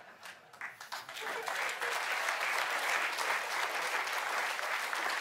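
Audience applauding: a few scattered claps at first, swelling into steady applause about a second in.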